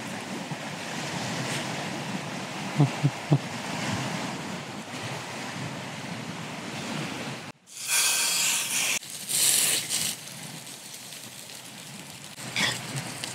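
Steady rushing noise of wind and surf, with a couple of soft knocks about three seconds in. After a sudden cut about halfway through come two loud bursts of bright hissing.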